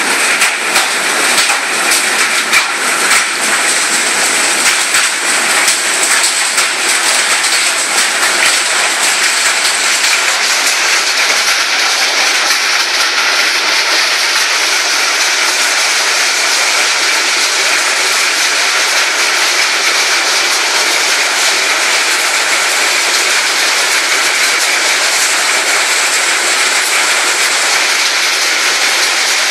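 Heavy rain falling steadily, a dense hiss, with many sharp drip ticks through roughly the first ten seconds.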